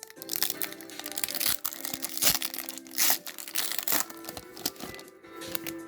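Foil trading-card booster-pack wrapper crinkling and tearing as it is opened, with the loudest crackles about two and three seconds in, over steady background music.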